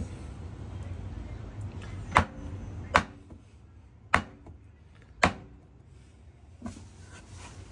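Chinese cleaver chopping through boneless chicken breast onto a wooden cutting board: four sharp knocks about a second apart, then a fainter one near the end.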